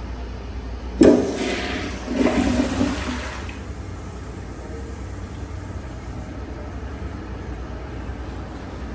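Kohler Highline Pressure Lite pressure-assisted toilet flushing. It starts suddenly and loudly about a second in, surges again a second later, and dies away after about two and a half seconds.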